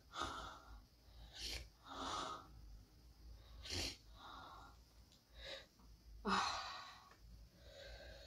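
A woman breathing in short, hissing gasps and sniffs, about seven in eight seconds, the breathing of someone eating fiery chilli sambal.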